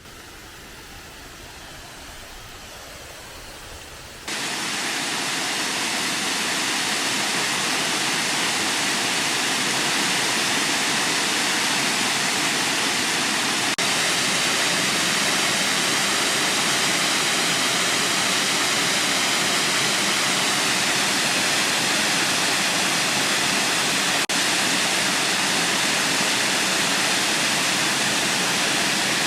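Waterfall rushing: a steady, even roar of falling water. A softer hiss for the first four seconds or so, then it suddenly becomes much louder and stays level.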